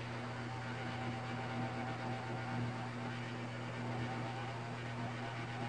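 Steady hum and whir of a hot air rework station's blower, heating solder paste to reflow a needle LED onto the instrument cluster's circuit board.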